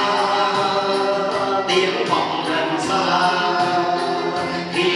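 Several men singing a song together into microphones, accompanied by an acoustic guitar, the voices holding long notes.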